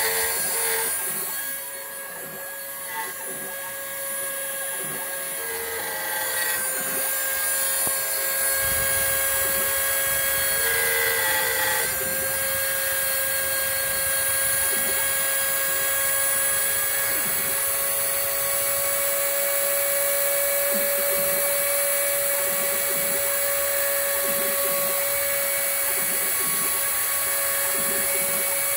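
Old Dremel rotary tool running as the spindle of a home-built CNC mill during a facing cut, a steady high whine. It is quieter for the first few seconds, then holds steady.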